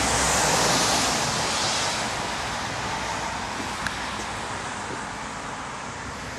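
Steady rushing hiss of rain and wet outdoor air, loudest in the first couple of seconds and then slowly fading, with one small click about four seconds in.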